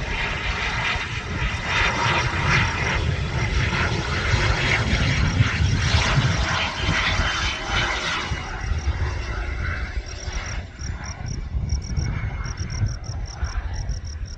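The single Williams FJ33-5A turbofan of a Cirrus SF50 Vision Jet on landing approach, a rushing jet noise that swells to its loudest about six to eight seconds in and then fades as the jet passes and flares over the runway. In the second half, insects chirp in a steady, evenly spaced rhythm.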